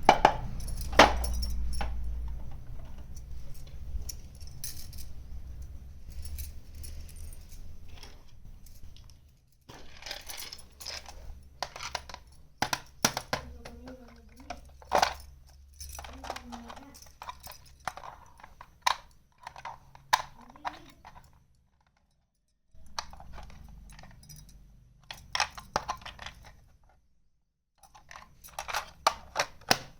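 Small plastic pieces of a miniature toy kitchen set being handled, with quick clicks and light clinks as they tap together and are set down. Two short breaks of silence come in the second half.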